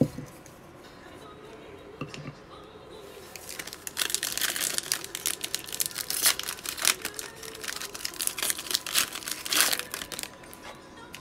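A foil trading-card pack (2020 Panini Mosaic football) being torn open and crinkled by hand, a dense crackle of the wrapper from about three seconds in until near the end. A soft knock at the start.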